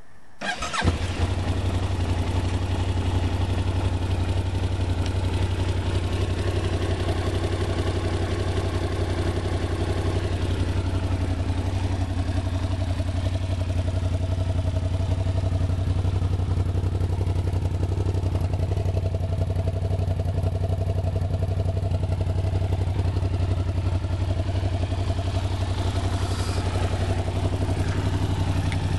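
Yamaha TDM 900 motorcycle's 900 cc parallel-twin engine cranked on the electric starter, catching within about a second, then idling steadily.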